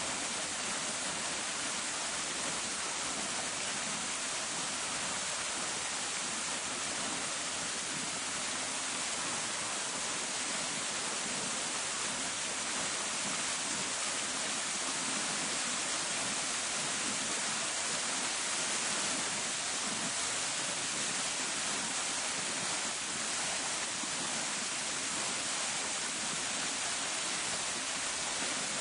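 Park fountain splashing: a steady, even rush of falling water.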